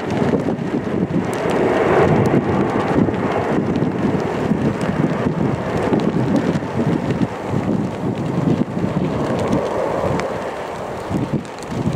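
Airbus A340-600's four Rolls-Royce Trent 556 turbofans rumbling as the airliner climbs away. It is a steady, deep jet rumble that eases slightly about ten seconds in.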